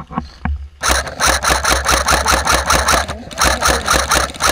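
Airsoft electric rifle firing on full auto: a rapid, even stream of shots with the gearbox cycling. It fires one burst of about two seconds, stops briefly, then fires a second long burst. A few separate knocks come just before the first burst.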